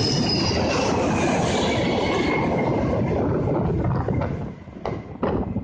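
Boeing 747-400's four jet engines passing low overhead on landing approach: a loud, steady roar with a whine that falls in pitch as the airliner goes by. About four seconds in the roar drops away and a run of sharp cracks follows.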